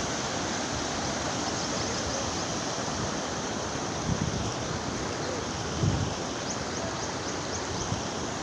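Steady rushing of water in a monsoon-swollen stream flowing past. Two short low thumps stand out, about four and six seconds in.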